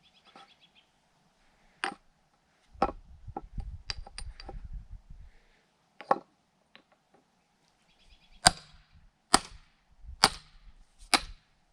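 Hand-tool blows into a dry log to split pieces and bark off its side: a few single sharp strikes, a low rumbling clatter after the second one, then four heavy blows about a second apart near the end.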